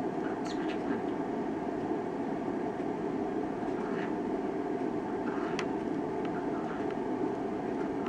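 Steady low background rumble of room noise with no clear bird call, broken by a few faint, sharp clicks, one about half a second in and another about five and a half seconds in.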